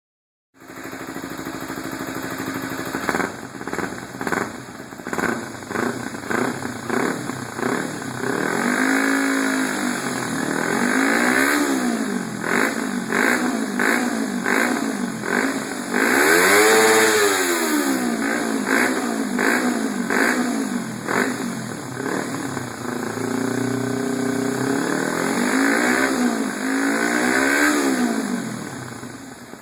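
Kawasaki Ninja 250R's parallel-twin engine, fitted with an aftermarket exhaust, revved repeatedly: quick throttle blips at first, then longer revs rising and falling in pitch, the highest about halfway through.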